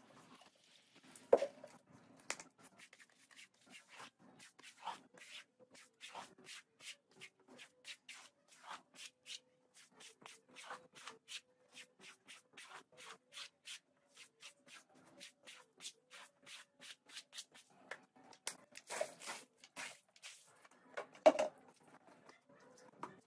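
Stiff-bristled push brush scrubbing a wet, soapy rug in short rhythmic strokes, about two a second. There are a few louder scrapes or knocks about a second in and near the end.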